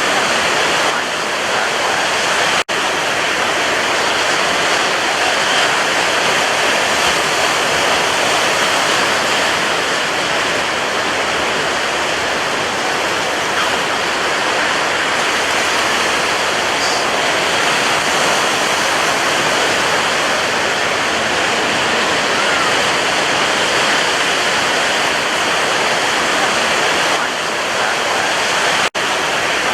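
Sea surf making a continuous, steady rush of breaking water with no distinct individual waves, cut by two split-second dropouts, one near the start and one near the end.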